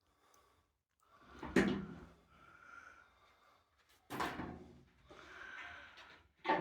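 Thin sheet-metal barbecue parts being handled during assembly: a clunk with a scrape about one and a half seconds in, another about four seconds in, and a third near the end, with quieter rattling between.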